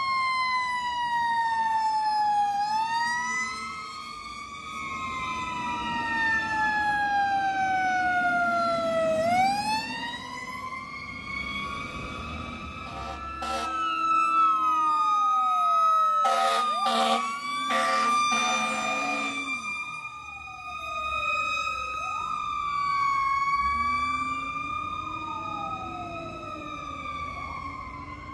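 Fire apparatus sirens wailing on the move, several tones sliding slowly down and up and crossing one another. A cluster of short, loud blasts sounds about two-thirds of the way through.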